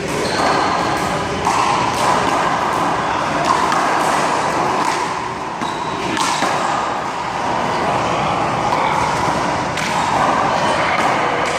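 One-wall handball rally: the small rubber ball smacked by open hands and slapping against the wall and the court, sharp hits coming irregularly about once a second.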